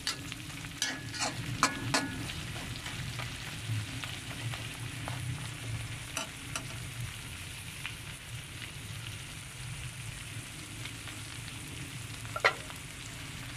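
Whole shrimp sizzling as they fry in oil in a metal pan. A metal spoon clinks and scrapes against the pan several times in the first couple of seconds and once, sharply, near the end.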